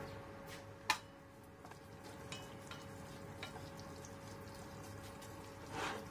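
Wooden chopsticks stirring sambal in a stainless steel saucepan: small clicks and scrapes against the pan, with one sharp tap about a second in, over a faint sizzle of the sambal cooking in oil and a steady faint hum.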